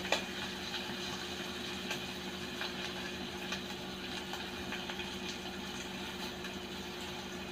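Pork slices sizzling on a hot non-stick grill pan: a steady hiss with scattered small pops of spitting fat, over a low steady hum.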